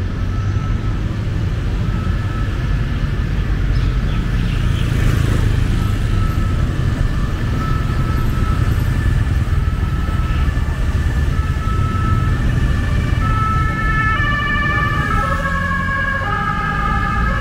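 Ambulance siren over a steady low rumble of street traffic. A short high tone repeats every second or two, then becomes a louder, warbling wail of several tones in the last few seconds.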